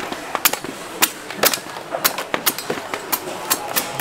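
A blade chopping coconuts with quick hacks, about two sharp strikes a second, in a slightly uneven rhythm.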